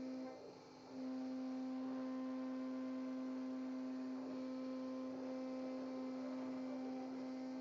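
CNC router running: a steady machine hum with a clear pitch and overtones, which cuts out for about half a second shortly after the start and then resumes.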